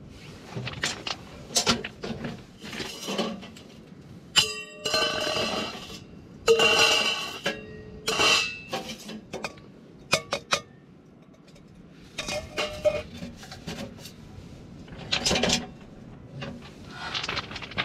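Metal clanks and clinks of an Outbacker Firebox tent stove and its flue pipe sections being handled and fitted together, an irregular run of knocks, several of them ringing, the loudest about four to eight seconds in.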